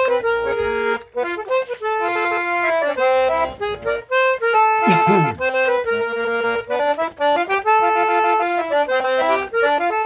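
Eight-bass diatonic button accordion (oito baixos) playing a lively forró melody over chords, with quick changes from note to note. A short falling glide sounds about five seconds in.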